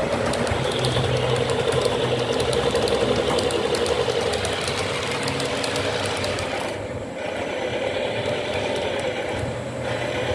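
Model train running along the track: a small electric locomotive motor whirring steadily, with the wheels of the wagons clicking rapidly over the rail joints. The sound dips briefly about seven seconds in, then carries on.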